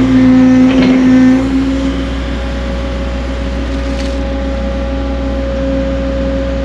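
Caterpillar 307.5 mini excavator's diesel engine and hydraulics running with a steady whine, loudest for the first second and a half while the boom is worked, then easing to a steady run. A light click about four seconds in.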